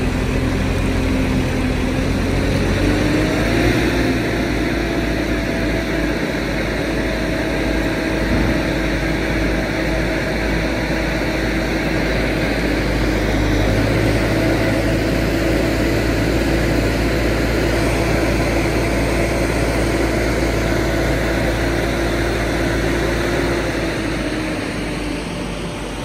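Mobile crane's diesel engine running at raised speed while it swings and lowers a cut tree section on its hook. The drone holds a steady pitch that steps up about three and a half seconds in and sinks again near the end.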